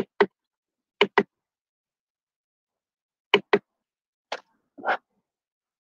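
Computer mouse clicked in quick pairs, three double-clicks a second or two apart, then two softer clicks near the end, as a screen presentation is started.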